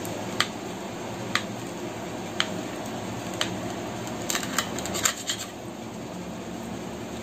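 Small kitchen knife clicking against a ceramic plate as it cuts through a set, chilled milk pudding: four light clicks about a second apart, then a quick cluster of clicks and scrapes midway, over a steady background hum.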